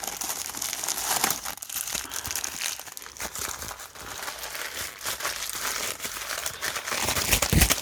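Packing material crinkling and rustling continuously as wrapped items are handled and unwrapped by hand, with a dull thump near the end.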